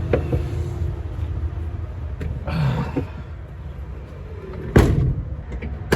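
Handling noises while fetching another crimp connector: a brief rustle about two and a half seconds in and a single sharp clunk near the end, over a steady low rumble.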